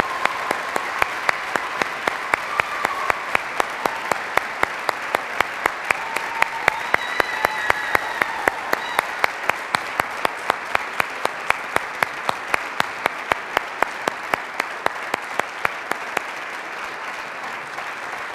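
Audience applauding, with a steady clap beat about two to three times a second standing out; the applause dies down near the end.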